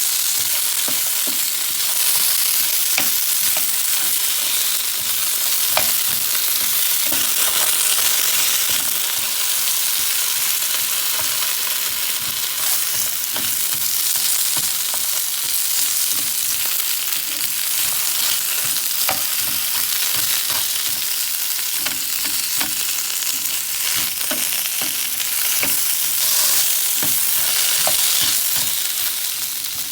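Minced garlic and thinly sliced potato frying in hot oil in a pan, sizzling steadily, with scattered light clicks as they are stirred.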